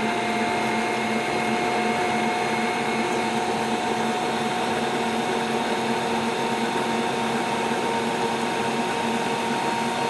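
Bosch Universal stand mixer running at a steady pitch, its motor whining as the wire whisks beat egg yolks and a slow drizzle of olive oil into mayonnaise.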